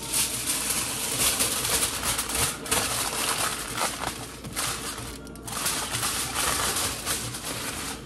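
Aluminium foil crinkling and crackling as it is pressed and folded tightly around a whole breadfruit to wrap it for roasting. The crackle runs almost without a break, with two brief pauses about two and a half and five seconds in.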